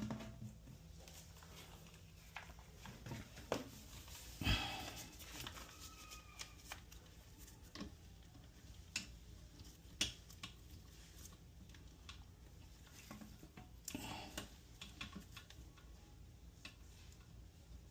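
Scattered light clicks and knocks of plastic toilet-seat parts and fixings being handled and adjusted during fitting, with one louder thump about four and a half seconds in and another short cluster near the end.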